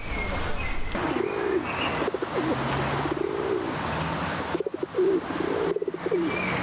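Pigeons cooing, a run of repeated coos starting about a second in, with a few faint chirps from small birds.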